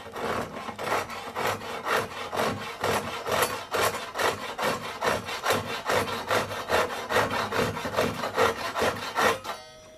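Gyokucho Japanese combination pull saw, cross-cut teeth, sawing through hardwood in quick, even strokes, about four a second, that stop just before the end. It is trimming a broken-off tenon stub flush from a chair rail's end to leave a clean surface.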